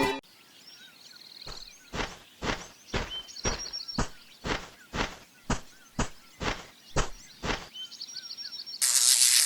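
A steady series of short knocks, about two a second, over faint bird chirps, followed near the end by a sudden loud hiss.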